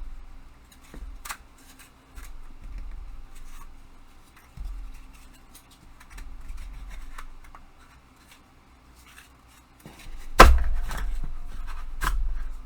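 Parts of a hobby tool storage rack being handled and fitted together: scattered light clicks and taps, then a sharper knock about ten seconds in and another a second or so later.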